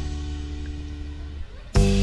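Background music: a held chord dies away, then a new chord comes in sharply near the end.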